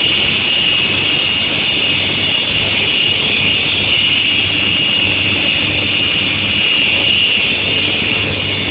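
Steel-sheet induction quenching and tempering line running: a steady high-pitched whine over a constant mechanical hiss, with no change in pitch or level.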